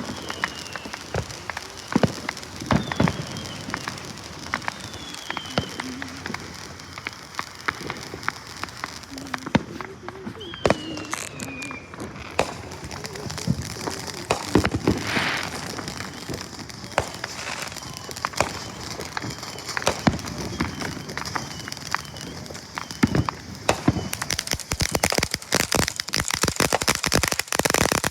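Fireworks going off: scattered sharp pops and bangs with a few short falling whistles, turning into dense, rapid crackling near the end.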